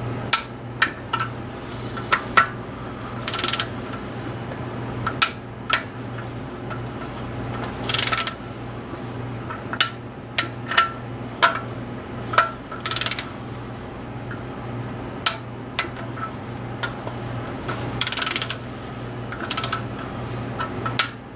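Hand tools on the camshaft's bearing cap bolts: sharp metallic clicks and clinks, with several short ratcheting bursts of about half a second, as the intake camshaft caps are tightened down.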